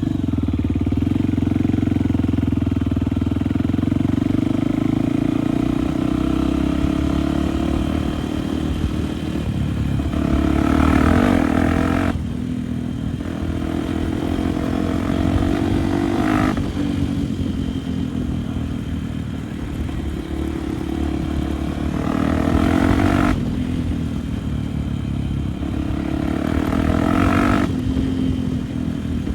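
Enduro motorcycle engine running under way, opened up in four surges of throttle, each cut off sharply.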